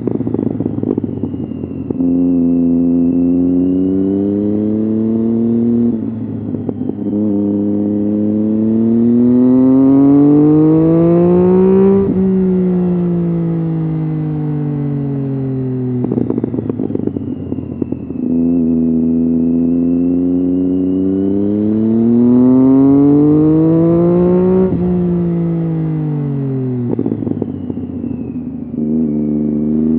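Triumph Street Triple's 675 cc inline-three running through the gears on an aftermarket Arrow exhaust. Twice the pitch climbs steadily as it pulls, then falls on the overrun. A rough, crackly burble comes in at low revs between pulls.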